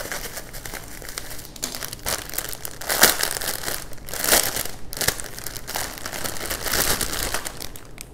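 Small plastic bags of nail-art parts being handled and rustled during unboxing, in irregular bursts, the loudest about three and four seconds in.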